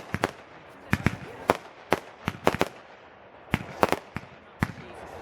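Fireworks bursting overhead in quick, irregular succession, about a dozen sharp bangs and cracks, some in close pairs or triplets.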